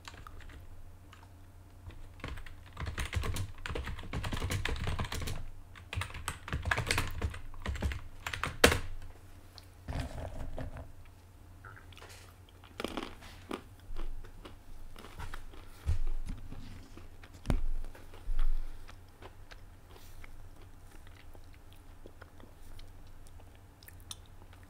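Typing on a computer keyboard: quick runs of keystrokes for the first several seconds, then scattered single key presses and a few louder clicks, over a steady low hum.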